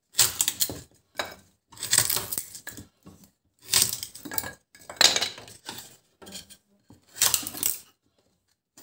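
Wood being split into kindling on a homemade steel-blade kindling splitter: about five separate bursts of splitting and clattering as the pieces are driven through the blade and fall away.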